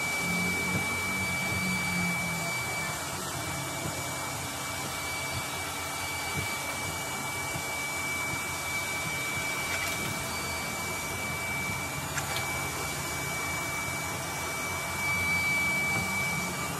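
A machine runs steadily with a whirring hiss and a thin, high whine that holds one pitch throughout.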